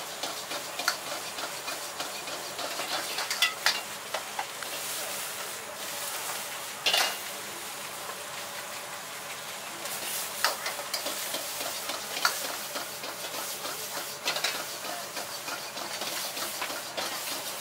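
Egg fried rice sizzling in a wok over a gas flame, with a metal wok ladle scraping and clanking against the wok every few seconds as the rice is stirred and tossed.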